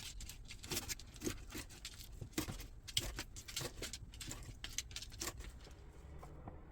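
Light, irregular clicks and taps of kitchen utensils and food being handled during cooking prep, a few a second, thinning out near the end.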